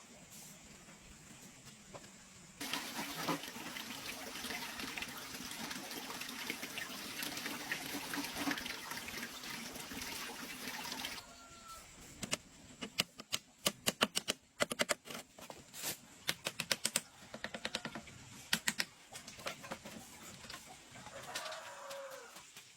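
Water gushing steadily for about eight seconds, then cutting off suddenly, followed by a run of sharp clicks and knocks.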